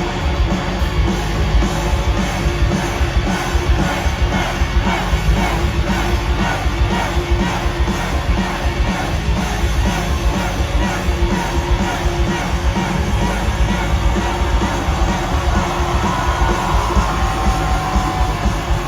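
Live rock music played loud, with the crowd yelling and singing along.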